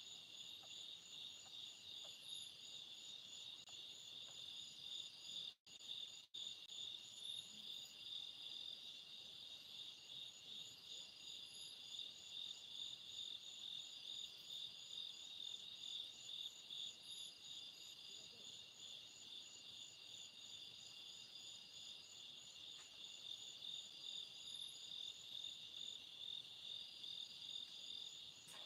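Chorus of night insects: a steady, high-pitched, rapidly pulsing trill. It cuts out to silence twice, very briefly, about six seconds in.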